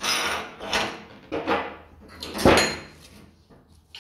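Metal parts of a hand-crank meat grinder scraping and clanking as the retaining ring and perforated plate are unscrewed and pulled off. There are four or five short scrapes, the loudest about two and a half seconds in.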